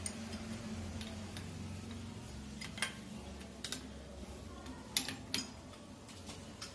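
Pipe wrench and hands working a chrome wall mixer onto its wall connections: scattered sharp metallic clicks and clinks, the loudest pair about five seconds in, over a low steady hum.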